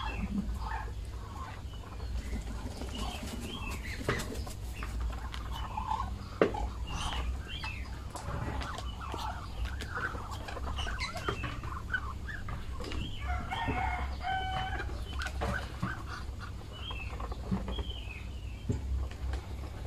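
Poultry calling and clucking in short calls around a feeding basin, with many small clicks of bills pecking at feed in a plastic tray. One longer, held call comes about two-thirds of the way in.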